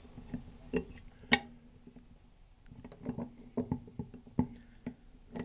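Scattered light metal clicks and taps of hand assembly: needle-nose pliers and a carriage bolt with a nylon washer knocking against a steel caster bracket. One sharper click comes about a second and a half in, and a quicker run of taps comes in the second half.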